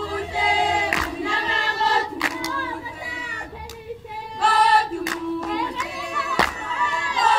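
A group of young women singing together in chorus, with a few sharp knocks cutting through, about a second in and again near the end.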